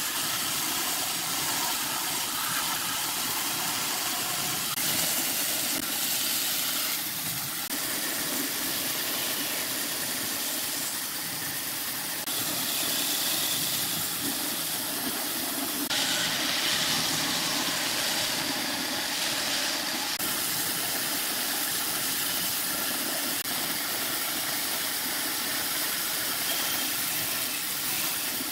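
Woodworking power tools running with a steady hissing machine noise. The texture changes abruptly several times, as one tool's sound cuts to another.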